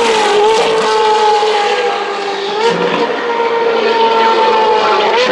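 Ferrari 458 Challenge's flat-plane V8 with a custom exhaust, running loud at high revs. Its high-pitched note dips slightly early on, climbs again about halfway through, then holds steady.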